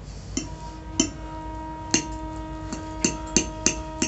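Metal fork clinking against a ceramic plate about eight times, the clinks coming closer together in the second half, leaving the plate ringing at a few steady pitches.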